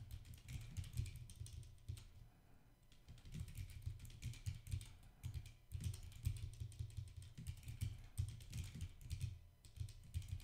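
Typing on a computer keyboard: fast runs of key clicks with a dull thud under each stroke, broken by a few short pauses.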